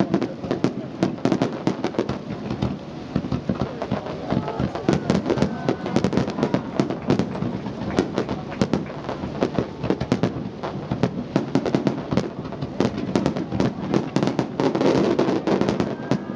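Fireworks display: aerial shells bursting in a dense, continuous barrage of bangs and crackles, many a second, with voices faintly underneath.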